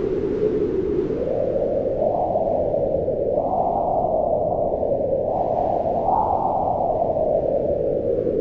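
Strong wind howling without a break, its moaning pitch rising and falling in slow swells, highest a little past the middle.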